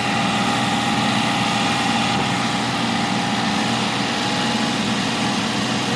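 A Prince Pearl's engine idling steadily.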